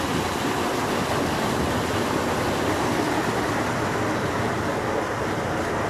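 Water rushing steadily through a laboratory open-channel flume with its circulation pump running.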